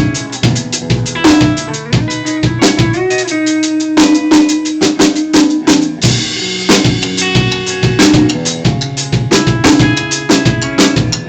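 Live band playing, with the drum kit's kick and snare hits prominent over sustained pitched instrument notes.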